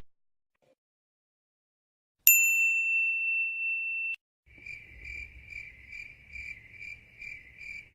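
A single bright ding that rings steadily for about two seconds and is cut off. About half a second later comes the crickets sound effect: a cricket chirping evenly, about two and a half chirps a second, over a faint low hum. This is the stock cue used for awkward silence.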